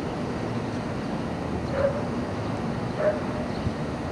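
A dog barks twice, a second or so apart, each bark short and sharp, over a steady background of street noise.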